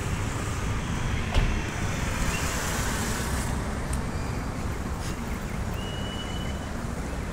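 City street traffic noise: a steady rumble of passing cars, with one sharp knock about a second and a half in and a brief high thin tone near the end.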